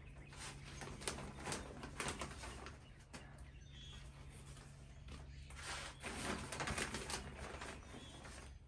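Hands working potting soil into a burlap-lined hanging basket around a fern: a few light taps and scrapes as soil is scooped and packed down, then a stretch of rustling about six seconds in as a hand digs into the plastic potting mix bag.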